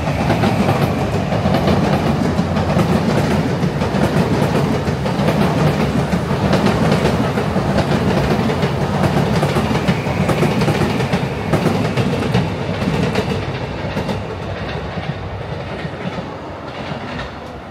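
A train passing close by, its wheels clattering over the rails in a loud, steady rumble that eases off near the end.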